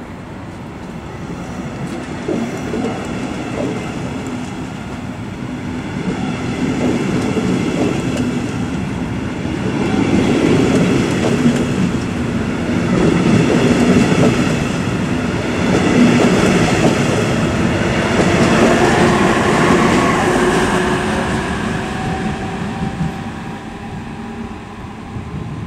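Metronom double-deck train running past on the rails, with wheels rumbling and clattering over the track. The sound builds to a loud peak partway through and then fades. A faint whine rises in pitch near the end.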